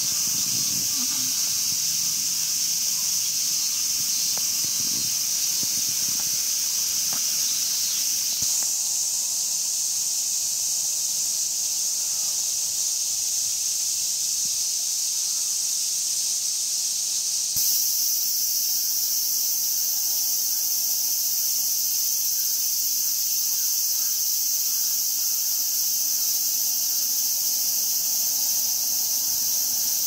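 A dense chorus of cicadas buzzing steadily at a high pitch. Its tone changes abruptly twice, about a third and about halfway through.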